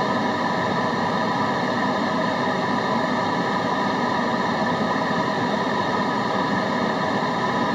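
Steady white noise: an even, unchanging hiss with a few faint steady tones running through it.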